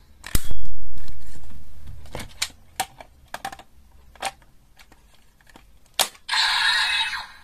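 Hard plastic clicks and snaps from a DX Wonder Ride Book toy being handled at a DX Kamen Rider belt toy: one loud snap about half a second in, then a run of light clicks. About six seconds in, the toy's electronic sound starts.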